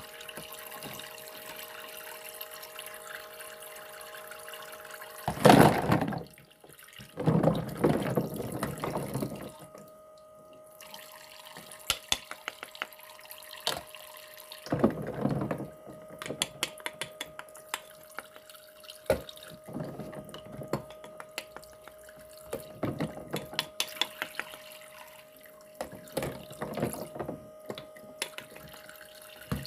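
Water running from a faucet in several short bursts, with small clicks and taps between them and a faint steady hum underneath.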